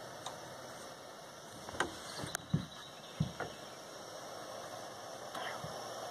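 Handheld propane torch hissing steadily as it heats a copper-to-brass joint for soft soldering, with a few light taps and knocks partway through.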